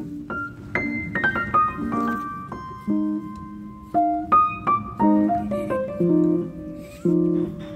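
Background piano music: a gentle melody of single notes over soft chords, each note struck and fading.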